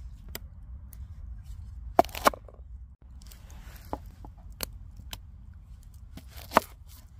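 Fixed-blade knife cutting a red onion on a wooden board: a few separate sharp knocks as the blade meets the wood, loudest as a quick pair about two seconds in and once more near the end, over a low steady rumble.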